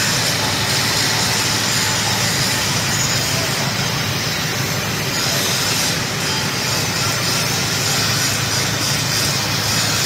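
Steady, unchanging machine noise: a low hum under a hiss, with no pauses or changes.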